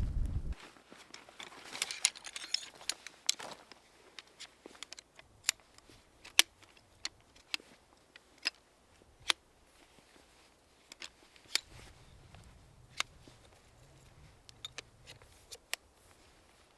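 Irregular sharp clicks and pops, roughly one a second, over a quiet background, after a low wind rumble cuts off about half a second in.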